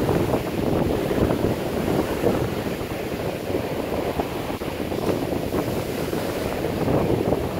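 Heavy surf breaking and washing up a sandy beach, mixed with strong wind buffeting the microphone.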